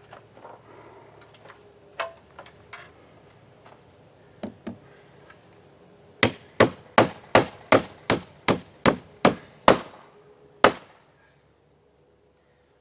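Claw hammer nailing an oak pallet-wood trim board: a few light taps to start, then about ten quick, evenly spaced blows, nearly three a second, and one final blow.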